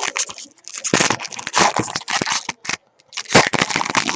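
Trading cards being handled and flipped through by hand, with rustling and crinkling of the packs: a dense run of quick rustles and card flicks, broken by a short pause about three seconds in.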